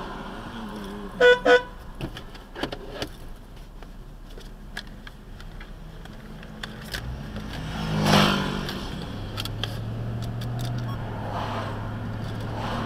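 A car horn toots twice in quick succession, two short blasts that are the loudest sounds here, over steady car and traffic noise. About eight seconds in there is a louder whoosh of road noise, then a steady low engine hum.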